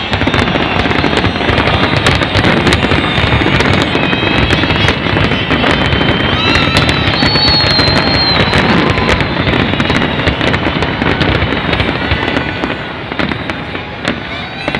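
Large fireworks display going off in a dense, continuous barrage of overlapping cracks and bangs, easing slightly near the end.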